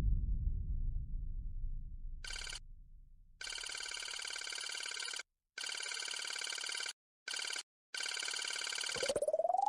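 Telephone ringing in repeated bursts with short gaps between them, after a low rumble fades out. Near the end a steady tone rises in pitch and then holds.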